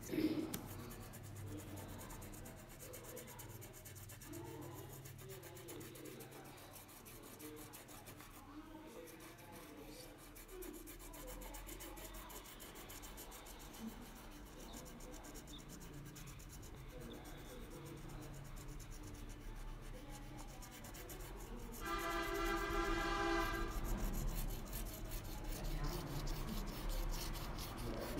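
Yellow wax crayon rubbed rapidly back and forth on paper, a dense scratchy rasp as a large area is coloured in. Near the end a steady pitched tone sounds for about two seconds, louder than the scratching.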